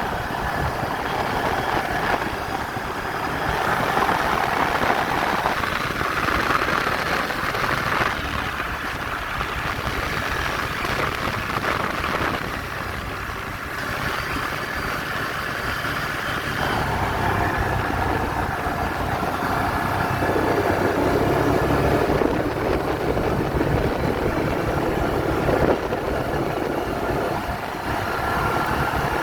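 ATV engine running during a ride, its note shifting up and down several times as the speed changes.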